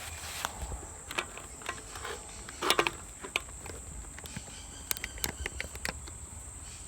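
Scattered small clicks and crackles of a red-hot knife blade being worked through a hard plastic toy pistol, with a sharper cluster about three seconds in, over a steady high insect trill.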